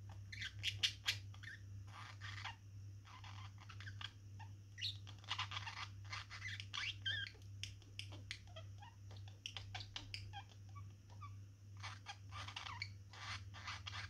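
Budgerigars chattering: quick chirps, clicks and scratchy warbled notes in short bursts.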